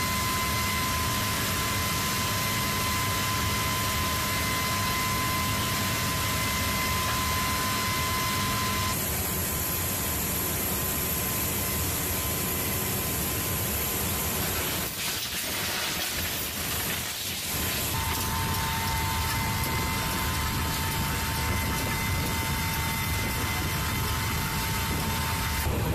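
Steady noise of a military cargo aircraft's running machinery heard inside its cargo hold: a constant rush with a high, steady whine on top, which shifts abruptly a few times.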